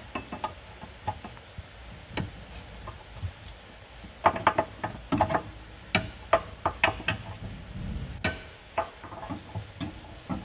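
Sharp metal clicks and clinks from a wrench with an M14 spline bit tightening the rear brake caliper carrier bolts on a VW Golf Mk7 GTI, in irregular clusters that get busier in the second half.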